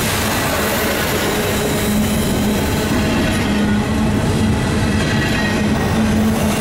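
Norfolk Southern double-stack intermodal cars rolling past: a steady, loud rumble and rattle of steel wheels on rail, with a faint high wheel squeal over it.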